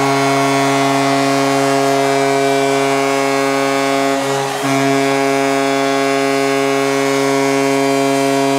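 Arena goal horn sounding after a home goal: a long, loud, steady blast that breaks off briefly about four and a half seconds in, then starts again.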